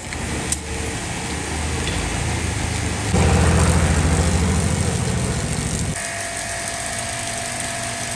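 A motor running steadily, getting markedly louder between about three and six seconds in.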